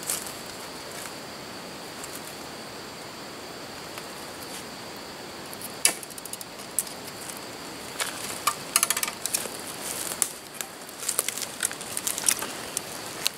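Footsteps crunching through dry bamboo leaf litter, with twigs crackling and snapping. The crackles begin about halfway through as a run of sharp clicks and snaps, on top of a steady faint high hum.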